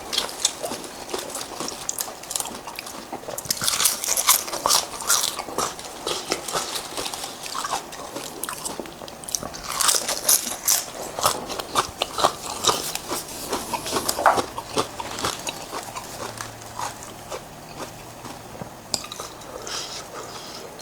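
A person chewing and biting crunchy food close to the microphone, with many irregular crisp crunches and crackles.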